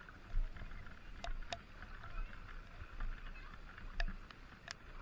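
Legs wading through deep floodwater, sloshing and splashing with each step, about once a second.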